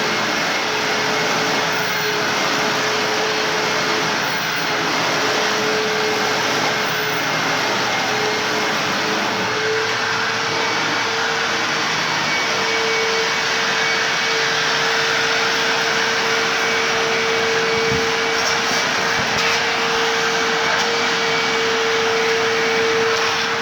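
Hoover WindTunnel self-propelled upright vacuum cleaner running steadily: a continuous rush of air over a motor hum that rises slightly in pitch and grows stronger about halfway in.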